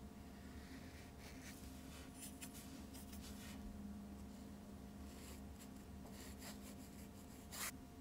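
Small paintbrush stroking gouache onto sketchbook paper: a run of short, soft scratchy strokes, the sharpest one near the end, over a faint steady hum.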